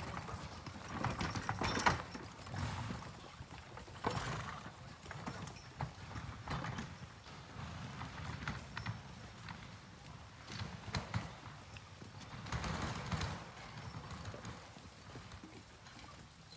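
Horses' hooves and a horse-drawn artillery carriage moving along a forest trail, followed by a column of men tramping past through dry leaf litter. The steps and hoof falls come as an irregular run of soft knocks, loudest about two seconds in.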